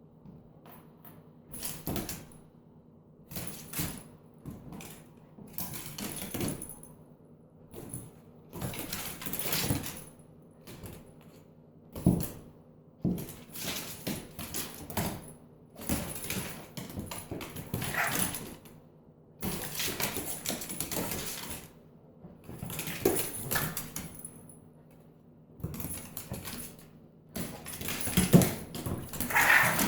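A large dog moving about and playing, with irregular scuffling and jingling noises in short bursts every second or two.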